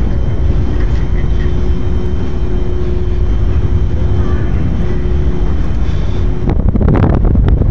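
Airport background noise: a loud, steady low rumble with a faint steady hum. The hum stops about six and a half seconds in, and wind buffets the microphone near the end.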